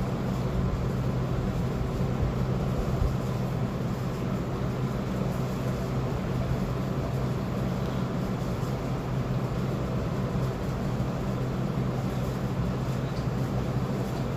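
Hot-air heat gun running steadily, its blower motor giving a constant hum with airy hiss.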